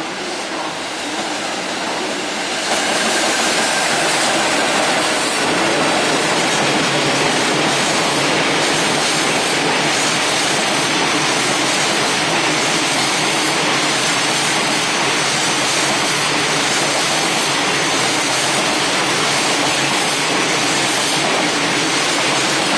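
Container freight train passing close by behind an electric locomotive. A rushing noise of steel wheels on rails grows louder about two and a half seconds in, then holds steady as the container wagons roll past.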